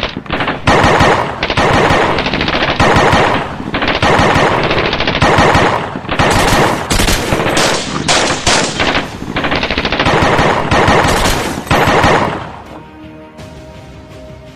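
Automatic gunfire, one burst after another about once a second, stopping about twelve seconds in.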